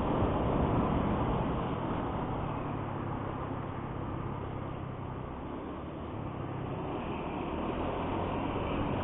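Motorcycle engine running under way on a highway, mixed with wind and road noise. The sound eases off somewhat in the middle and builds again near the end.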